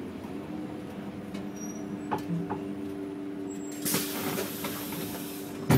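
City bus engine running with a steady hum. About four seconds in comes a loud hiss of compressed air from the bus's pneumatics, lasting under two seconds and ending in a sharp thump.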